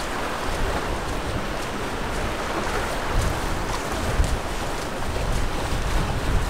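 Wind buffeting the microphone in uneven low rumbles over the steady wash of the sea.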